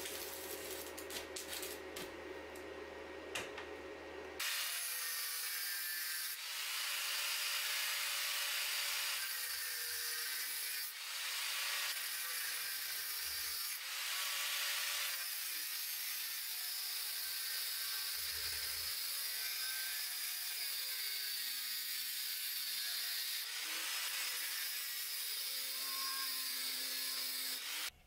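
Angle grinder grinding the steel of a machete blade clamped in a vise: a steady, harsh hiss with a faint motor whine, broken by a few short pauses. Before it starts, about four seconds in, there is a quieter stretch of low hum and scattered clicks.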